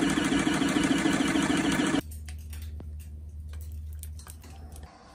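Gold shaker table running, its motor-driven deck clattering in a fast, steady rhythm with water over it. About two seconds in it cuts off abruptly, leaving a much quieter low steady hum with a few faint clicks.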